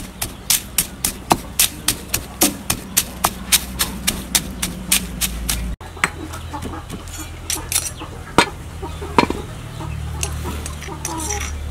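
Stone pestle pounding peanuts in a heavy stone mortar: quick, even strokes at about three a second, then slower, scattered knocks for the second half.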